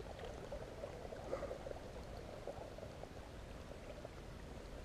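River water running and babbling steadily.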